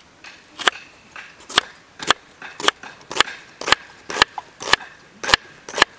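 Kitchen knife chopping ingredients on a cutting board, a steady run of sharp strokes about two a second.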